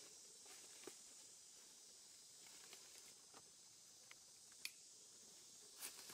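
Near silence: a faint steady high hiss, with a few soft clicks about a second in, past four and a half seconds, and near the end.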